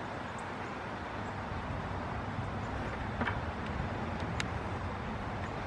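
Steady low rumble and hiss of outdoor background noise, with a couple of faint clicks about three and four and a half seconds in.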